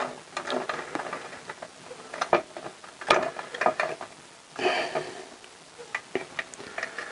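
Small metal clicks and scrapes of a socket holding a nut, worked by hand onto a motorcycle exhaust header's flange fixing. There is a sharper click about three seconds in and a brief rasp a little before five seconds.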